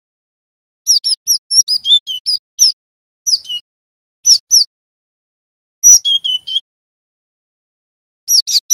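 Cinereous tit (glatik batu) singing in about five short runs of quick, high, sharp chirping notes separated by silent pauses. The longest run comes about a second in, and another starts near the end.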